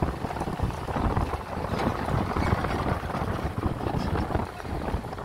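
Wind buffeting the microphone over a low rumble of travelling along a paved road, steady with uneven gusts.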